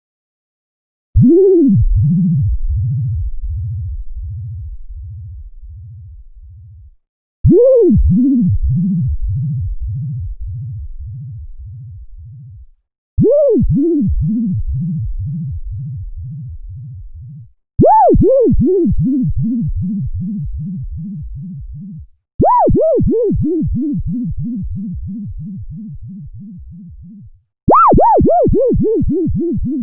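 Synthesized cartoon bouncing 'boing' sound effect, played six times. Each starts with a big up-and-down pitch swoop, followed by a run of smaller, quicker swoops that fade away like a ball bouncing to rest. Each repeat starts higher in pitch than the last.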